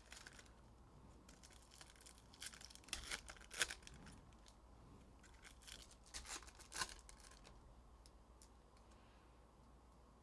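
Trading-card packaging being handled and torn open: faint crinkling and tearing of wrappers, in two short bouts of sharp crackles, a few seconds in and again about two-thirds of the way through.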